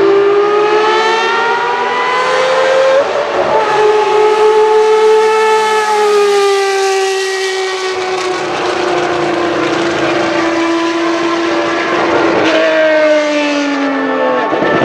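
1989 Ferrari 640 Formula 1 car's V12 engine at full throttle, its pitch climbing until a quick upshift about three seconds in. It then holds a long high note that slowly sinks in pitch as the car passes and pulls away, with another drop in pitch near the end.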